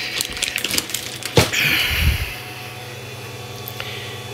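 Handling noise at an unzipped fabric 3D-printer enclosure: the enclosure fabric rustles and clicks as it is pulled aside, with a sharp knock about a second and a half in. After a couple of seconds the handling stops and a low steady hum is left.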